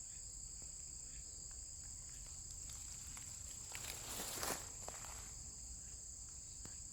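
Steady, high-pitched shrilling of an insect chorus, with a brief rustle and a few light clicks about four seconds in.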